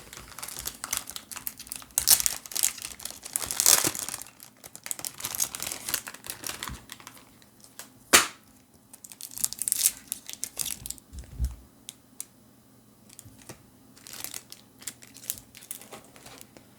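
Foil Pokémon booster pack wrapper being torn open and crinkled, in irregular bursts of crackling, with one sharp snap about eight seconds in.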